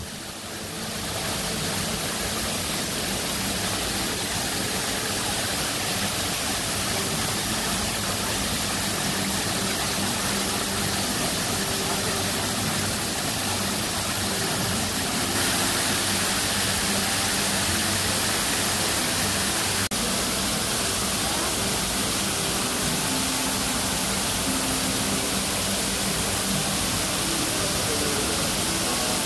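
Waterfall splashing down a rock face into a pond: a steady, even rush of falling water that gets a little louder about halfway through.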